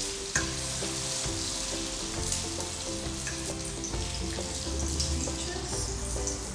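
Butter-and-honey caramel syrup sizzling in a heavy enamelled pan on the stove, with a spoon scraping and clicking in the pan as nectarine halves are lifted out. Soft background music with held notes plays underneath.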